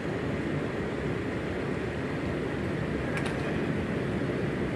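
Steady low outdoor background rumble, with a brief high click about three seconds in.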